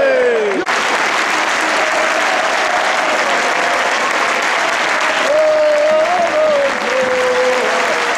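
Football crowd applauding steadily in the stadium, with voices in the crowd starting a wavering sung chant about five seconds in. A held crowd shout, falling in pitch, cuts off abruptly less than a second in.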